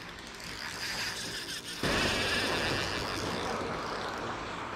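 TiCA EZI Cast 6000 fishing reel ratcheting and clicking as it is worked against a hooked fish on a hard-bent rod, over surf washing on the rocks. The sound turns suddenly much louder about two seconds in.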